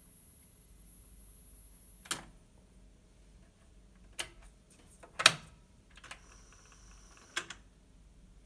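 Mechanical clicks and clacks of a Tandberg TCD 330 cassette deck as a cassette is loaded and the door shut. The loudest clack comes about halfway through, and a pair of quicker clicks follow near the end. About two seconds in, a click cuts off a steady high tone.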